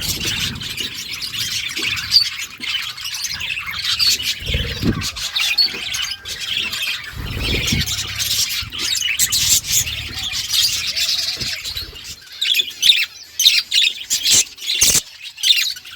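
A flock of budgerigars chattering and warbling nonstop, mixed with sharp squawks and clicks. The calls grow sharper and more spiky over the last few seconds, and there are a couple of brief low rumbles partway through.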